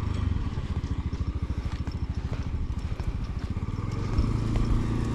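Small motorbike engine running at low speed with a rapid, even putter, turning into a steadier hum about four seconds in.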